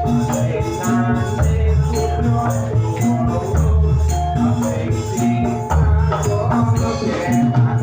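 Javanese gamelan music for a jathilan dance: a pitched metallophone melody over deep gong strokes about every two seconds, with a steady rattling percussion beat.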